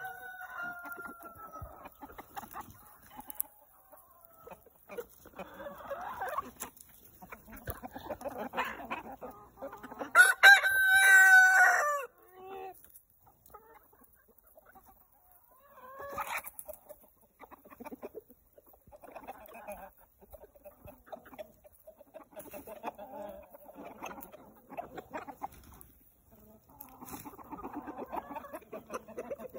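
A flock of chickens clucking and murmuring as they peck at food. About ten seconds in, a rooster crows once, loudly, for about two seconds.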